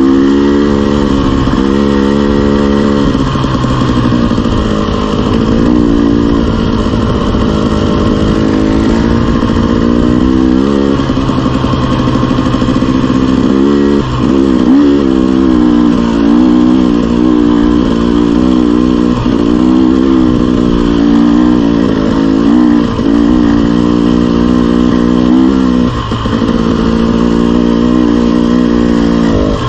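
Dirt bike engine running on a trail ride, its revs rising and falling continually with the throttle, with a couple of brief drops in pitch and level.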